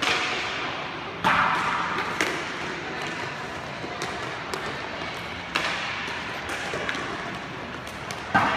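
Sharp knocks of hockey sticks and a puck on a roller-hockey rink's plastic floor and boards, with one about a second in, another a little after two seconds, one at about five and a half seconds and a loud one near the end, each ringing out under the rink's roof over a steady background noise.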